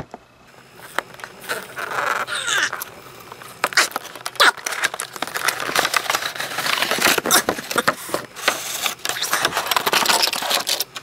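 Plastic blister packaging and cardboard of a toy train box being pulled open and handled: irregular rustling, scraping and crackling with many sharp clicks.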